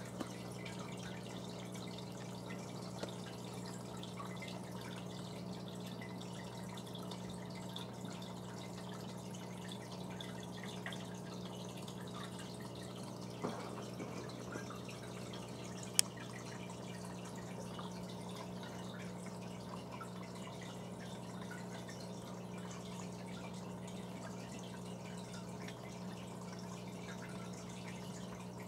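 Aquarium pump humming steadily, with water dripping and trickling in the tank; a soft knock and then a single sharp click a little past the middle.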